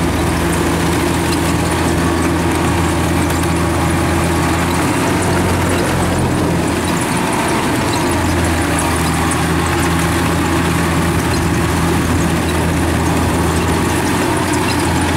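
Kubota rice combine harvester's diesel engine running steadily under load as the tracked machine works to drive itself out of deep mud where it is bogged down. The engine note wavers about five seconds in and settles again a few seconds later.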